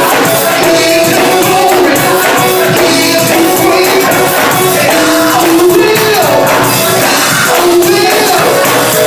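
Gospel choir singing, with hand clapping keeping the beat; loud throughout.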